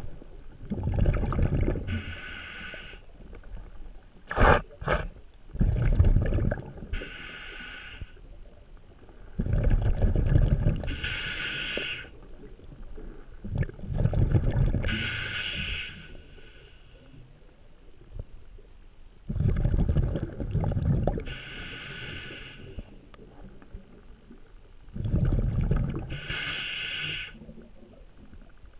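A diver breathing underwater through a demand regulator, about every five seconds: each breath is a low bubbling rumble from the exhaled bubbles and a hiss as the regulator delivers air. A few sharp knocks come about four seconds in.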